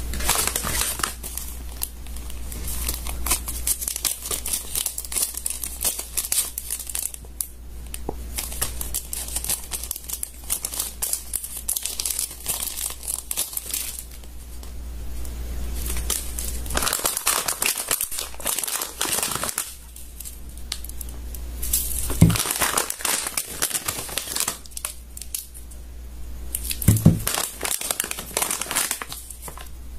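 Slime being squeezed and worked by hand, making continuous crinkling, crackling sounds, with two sharper pops about 22 and 27 seconds in.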